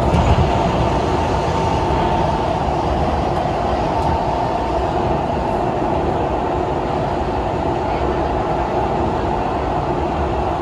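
Singapore MRT train running at speed, heard from inside the carriage: a steady rumble and rush of wheels on rails. It is briefly louder right at the start.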